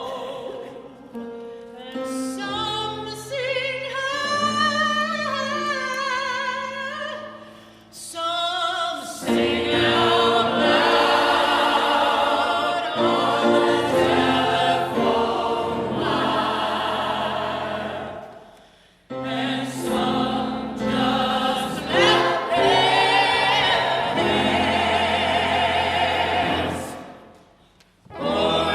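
Choral singing with accompaniment: a thinner vocal line with vibrato at first, then a fuller sound of many voices from about nine seconds in, in phrases with short breaks between them.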